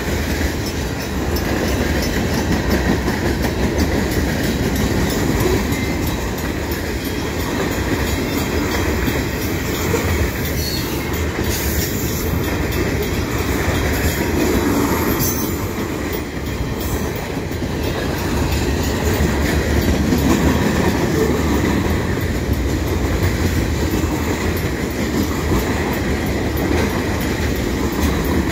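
Cars of a CN mixed freight train rolling past at close range: a steady rumble of steel wheels running on the rails.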